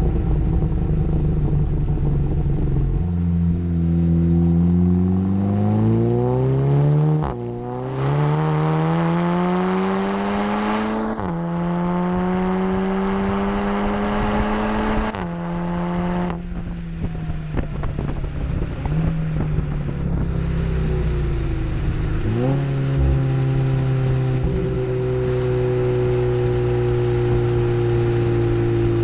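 Seat Leon Cupra's turbocharged four-cylinder through a Milltek Sport exhaust, accelerating hard through the gears with quick DSG upshifts about 7 and 11 seconds in. It lifts off around 16 seconds, gives a sharp rev blip near 22 seconds, then runs at a steady, slowly falling engine speed.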